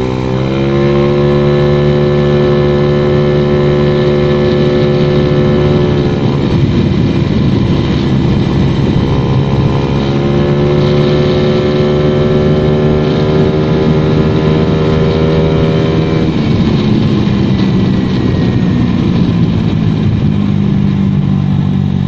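Honda Vario 110 carburetted scooter's single-cylinder four-stroke engine running through an AHM standard racing exhaust while riding under throttle. The revs climb and hold steady, drop off about six seconds in, climb and hold again, then ease back about sixteen seconds in.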